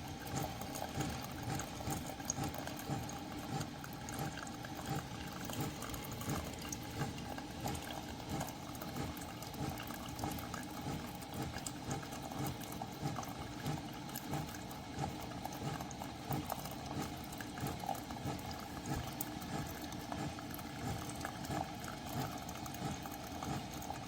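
Hot water bubbling steadily, with a constant fine flutter and no breaks.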